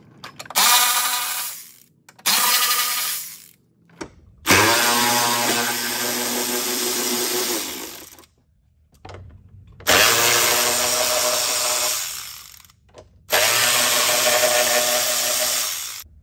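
Cordless electric ratchet whirring in five bursts of one to four seconds, backing out a fender bolt.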